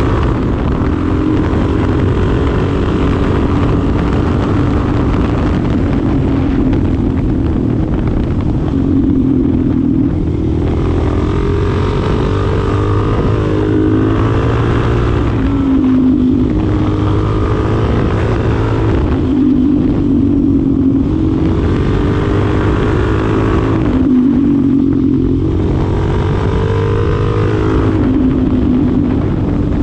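2025 Suzuki DR-Z4SM's 398 cc single-cylinder engine being ridden, its pitch climbing under throttle and dropping back off about five times as the bike accelerates and shifts or slows.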